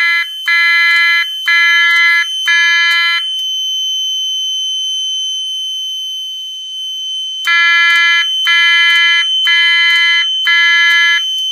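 E2S A100 fire alarm sounder in alarm, pulsing a loud multi-tone signal at about one beat a second. It cuts out for about four seconds partway through, then resumes pulsing. A steady high-pitched tone runs underneath.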